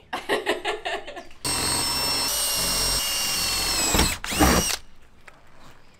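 Cordless drill boring into a van's sheet-metal roof. It runs steadily for about two and a half seconds, sags slightly as it stops, then gives one short second burst.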